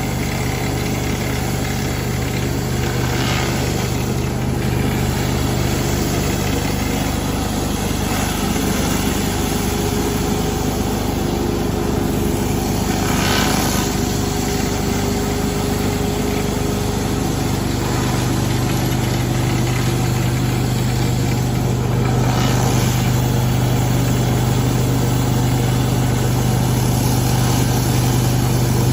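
Gas-engine pressure washer running steadily, with the hiss of its water spray on concrete. The hiss rises briefly three times, and the engine's hum shifts slightly about eighteen seconds in.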